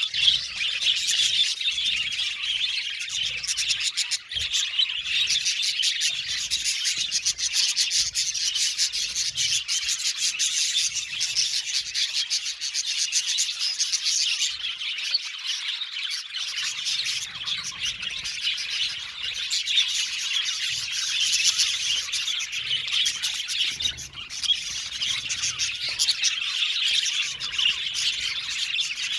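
A colony of budgerigars chattering and chirping together, a dense, continuous mix of many overlapping short calls.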